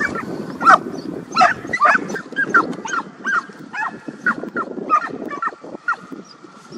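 Hunting dogs barking in short, high yelps, about two a second, as they run across the clearing; the yelping stops shortly before the end.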